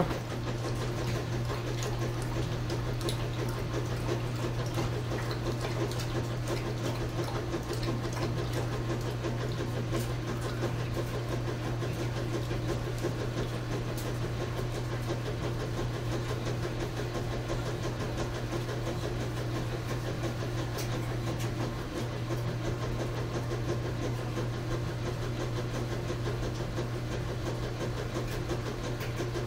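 A machine running with a steady low hum, unchanging throughout, with faint scattered clicks over it.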